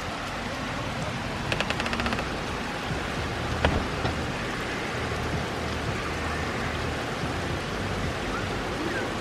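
Steady rain falling, an even hiss of drops. About one and a half seconds in comes a quick rattle of about ten clicks, and a little over two seconds later a single sharp click.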